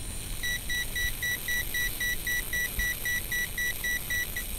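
Uni-T UT-513 insulation resistance tester beeping rapidly, about five short beeps a second, while it puts out 5 kV; the beeps stop near the end. Under the beeps is a steady high-pitched hiss, the high-frequency noise of the high voltage arcing over inside the ANENG AN8008 multimeter.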